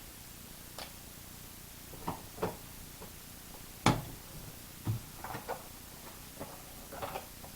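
Thin cardboard being cut out by hand: irregular short snips and crunches, several seconds apart or in quick pairs, the loudest about four seconds in.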